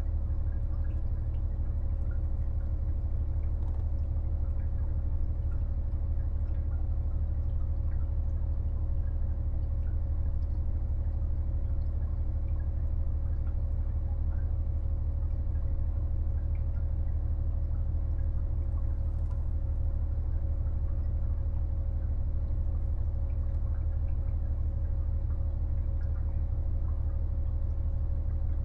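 Steady low drone of a KiHa 48 diesel railcar's engine heard on board, with a steady mid-pitched tone above it and a few faint scattered clicks.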